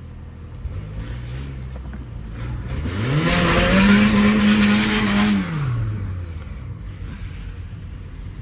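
Car engine revving up, held high for about two seconds with a loud rush of noise, then easing back down to a low idle.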